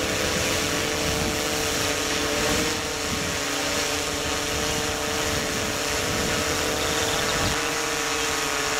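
Steady mechanical hum with a constant whine and a hiss behind it, unchanging throughout.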